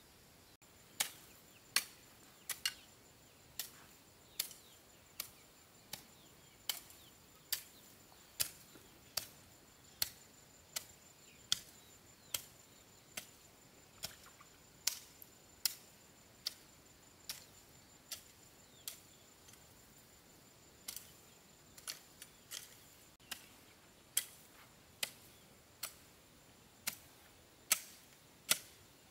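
A hand tool chopping in an even rhythm, sharp strikes about one and a half a second, with a short pause about two-thirds of the way through.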